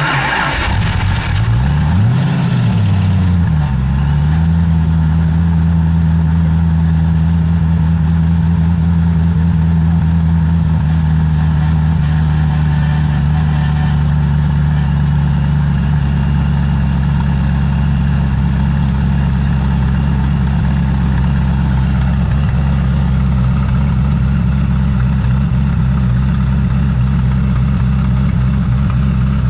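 Koenigsegg CC8S's supercharged V8 comes in loud, rises briefly in revs and drops back about two to four seconds in, then idles steadily with a deep, even note.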